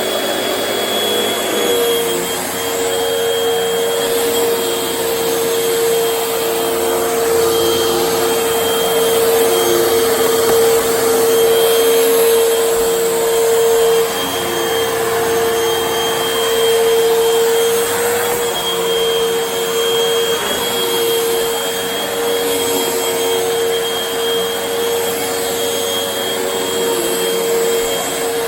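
Vacuum cleaner running steadily, its motor whine holding one pitch while the overall level rises and falls slightly.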